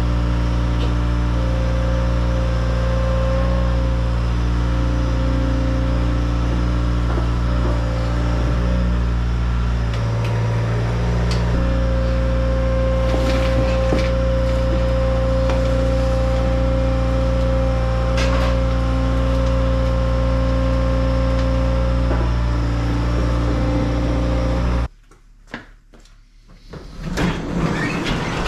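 Compact track loader's diesel engine idling steadily, with a few light knocks and clinks over it. About 25 seconds in the engine sound cuts off abruptly, and a rattle and clatter follow near the end.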